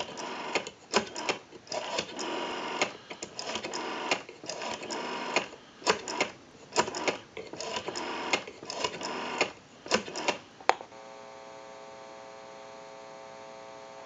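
The rotary dial of an ITT 500 desk telephone is pulled round and let spin back again and again while a number is dialed, each return rattling out a run of quick pulse clicks. About eleven seconds in, the clicking stops and a steady tone of several pitches comes on the line.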